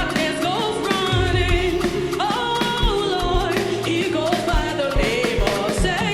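Live gospel praise music: singing over a band with keyboard, bass and a steady drum beat.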